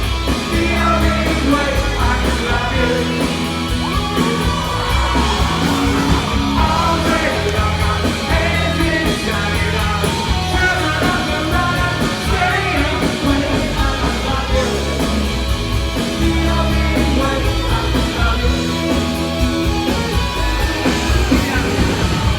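Live rock band playing loudly, with a singer's lead vocal over electric guitars, bass and drums.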